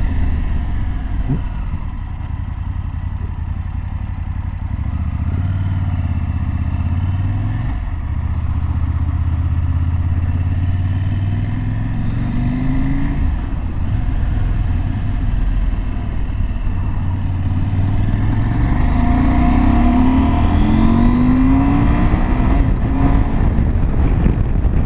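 KTM 790 Adventure's 799cc LC8c parallel-twin engine running on the road. The pitch rises as it accelerates about twelve seconds in, then climbs again in several short steps from about nineteen seconds as it pulls through the gears.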